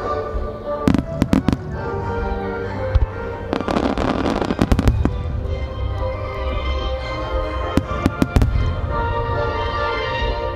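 Fireworks going off: sharp shell bangs, with a dense stretch of crackling about four seconds in, over steady music.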